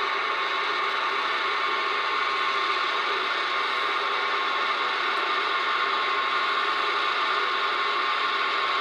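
CB radio receiver hissing steadily through its speaker on an empty channel, with a thin steady whistle in the static.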